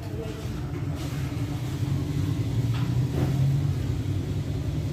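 Motor vehicle engine running as a low, steady rumble that grows louder about halfway through, then eases slightly.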